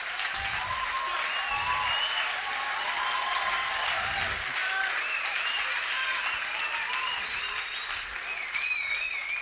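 A live audience applauding steadily, with high wavering whistles from the crowd over the clapping.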